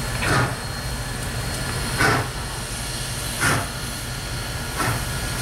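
Southern Railway #630, a 2-8-0 Consolidation steam locomotive, working slowly toward the listener: exhaust chuffs from the stack come four times, about one every one and a half seconds.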